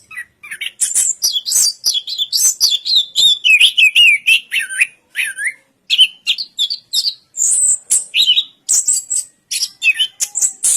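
Chestnut-capped thrush (anis kembang) singing a rapid, varied song of quick whistled notes, up-and-down slurs and sharp chips, nearly without pause.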